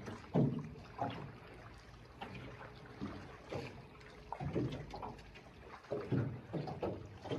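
Small waves lapping against a boat's hull in irregular soft splashes, about one a second.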